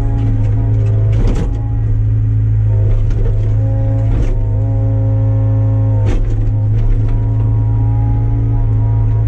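Excavator's diesel engine running steadily under load while it digs out tree stumps, its pitch shifting about halfway through, with a few sharp clanks from the machine at work.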